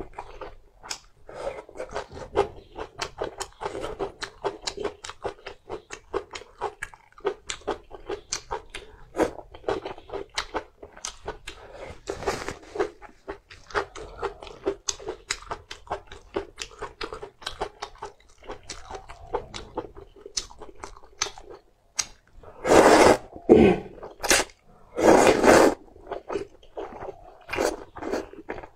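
Close-up mouth sounds of a person eating spicy hand-cut noodles: rapid wet chewing and smacking, then two louder, longer slurps of noodles about three-quarters of the way through.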